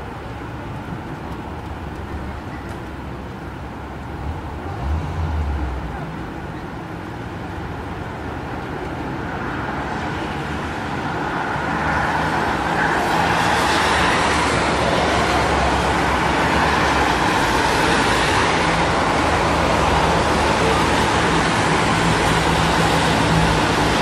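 Busy city street traffic: engines running in slow-moving traffic over a steady wash of road noise. A low engine swell comes about five seconds in, and the traffic grows louder from about ten seconds in and stays up.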